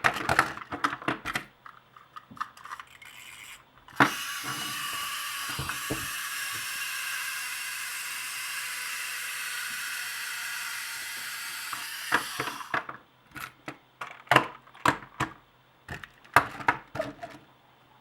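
Small plastic wind-up toy's clockwork motor whirring steadily for about nine seconds as its spring runs down, then stopping suddenly. Separate clicks and knocks from the toy being handled come before and after.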